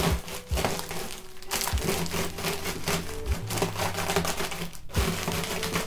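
Pretzels being crushed inside a plastic zip-top bag by pressing and rolling an aluminium can over them: a dense, irregular run of crunching and crackling, with the bag crinkling.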